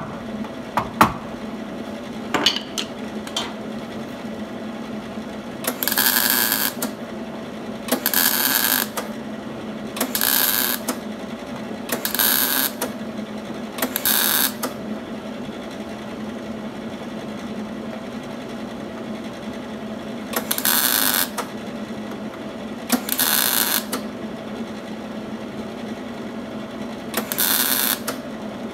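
A few hammer-on-dolly taps on sheet steel, then a series of short wire-feed (MIG) welding bursts, eight tack welds of about a second each, crackling and buzzing as the panel is tacked in place. A steady low hum runs underneath.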